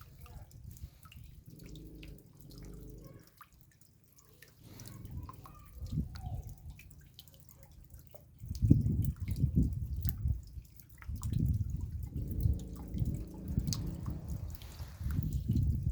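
Raindrops dripping and tapping irregularly, with dull low thuds that become louder and more frequent from about halfway through.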